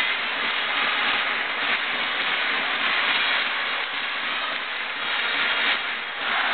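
Steady noise of a large crowd in a domed baseball stadium, many voices blending into one continuous din that eases slightly near the end.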